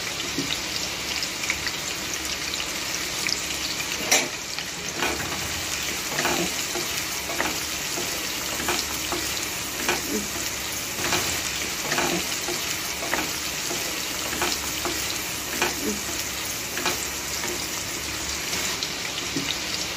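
Sliced onions sizzling steadily in hot oil in a non-stick kadai, with a wooden spatula scraping and knocking against the pan about once a second as they are stirred; the sharpest knock comes about four seconds in.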